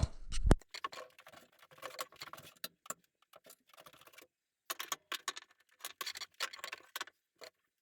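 A low thump, then irregular light clicks, taps and scrapes of things being handled in a workshop, with a brief pause a little after halfway.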